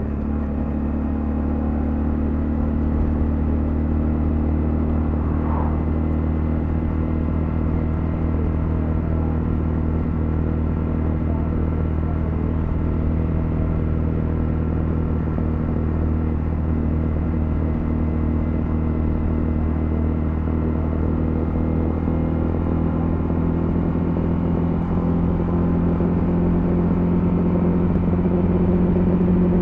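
Honda CL250's single-cylinder engine running steadily while riding, heard from the bike itself, growing a little louder near the end.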